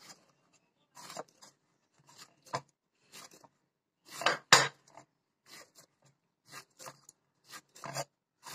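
Hand kneading cooked rice-flour dough on a plate: a series of short pressing and rubbing strokes about every half second, with the plate knocking faintly under them. The loudest strokes come a little past four seconds in.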